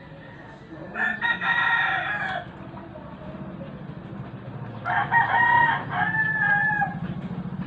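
A rooster crowing twice, each crow a drawn-out pitched call lasting about one and a half to two seconds, with the second crow coming about four seconds in. A low steady hum runs underneath.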